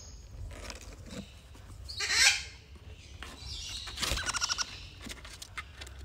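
Downy parrot chicks in a cardboard box giving rapid, buzzy begging calls, with one louder harsh squawk about two seconds in.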